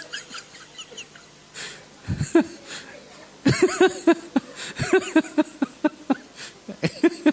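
Laughter in quick repeated bursts, starting about two seconds in and heaviest over the second half.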